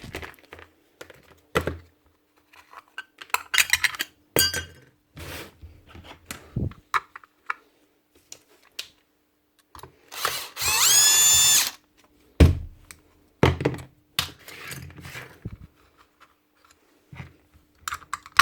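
Cordless drill-driver whirring once for about a second and a half, about ten seconds in, spinning up and holding speed as it undoes a screw on the sander. Around it come scattered clicks and knocks of screws and tools being handled.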